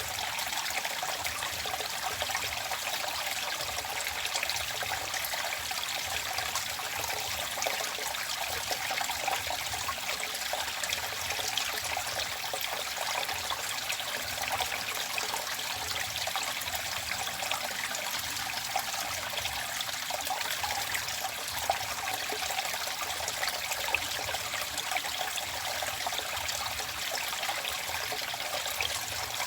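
Running water of a small stream trickling and splashing steadily.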